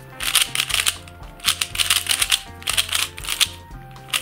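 Cheap magnetic 3x3 puzzle cube turned quickly by hand: fast runs of plastic clicking and clacking in several bursts, from a loosely tensioned cube. Background music plays throughout.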